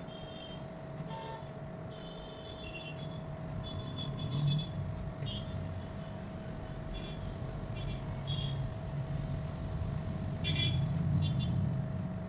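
Background road traffic: a low rumble of passing vehicles that swells about four seconds in and again near the end, over a steady hum, with short high-pitched sounds scattered throughout.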